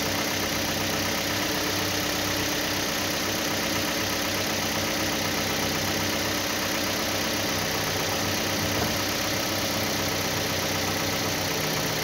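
Truck engine running steadily at idle, an even, unchanging rumble.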